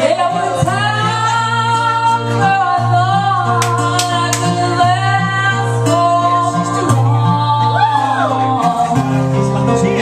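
A woman singing a song with instrumental accompaniment, holding long notes over a steady low backing.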